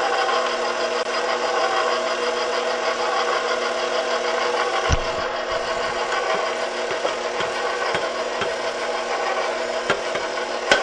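KitchenAid stand mixer running steadily on low speed, its motor humming and the wire whisk turning in the stainless steel bowl. A few light knocks, about five seconds in and again near the end.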